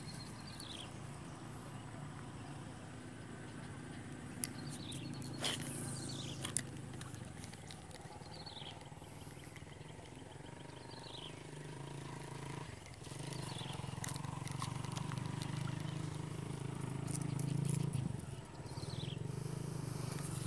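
Outdoor ambience: a steady low rumble, with a short high falling chirp repeated every few seconds and a few sharp clicks between about four and seven seconds in.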